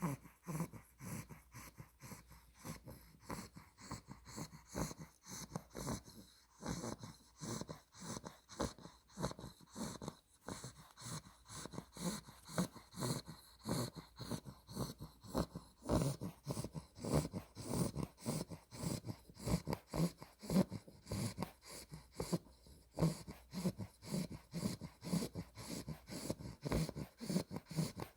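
A two-month-old Olde English Bulldog puppy snoring in her sleep: short snores in quick, even succession.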